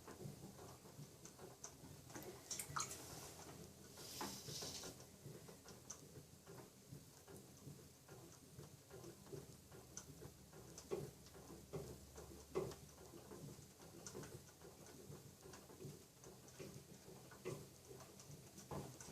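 Faint small clicks and soft pats of wet clay being handled in a pottery workshop, with a brief hiss about four seconds in, over a faint low steady hum.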